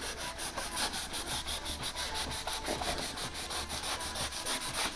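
Knife blade sawing back and forth through soft floral foam (Oasis block), a dry rasping scrape in quick, even strokes at about eight a second.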